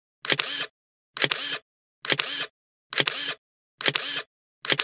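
Camera shutter sound effect repeated about once a second, six times. Each one is a sharp click followed by a brief mechanical whir, with silence between.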